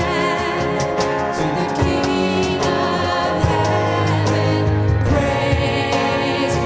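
Contemporary worship music: voices singing over a band, with sustained chords and a steady drum beat.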